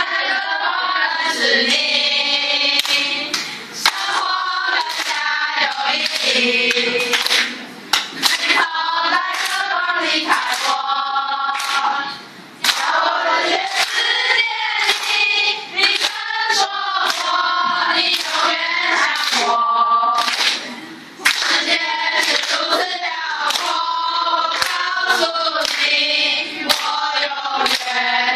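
A group of teenage girls singing a love song together in chorus, with pauses between phrases and scattered hand claps.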